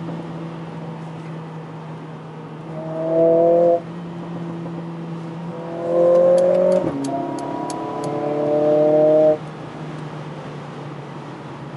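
Mercedes-AMG CLA 45 S's turbocharged 2.0-litre four-cylinder heard from inside the cabin at highway speed, cruising steadily under road noise and then accelerating in three bursts. The engine note rises sharply for about a second, rises again and drops abruptly in pitch at a gear change, then pulls up for a longer stretch before cutting off suddenly as the throttle is lifted. A few faint high ticks come near the middle.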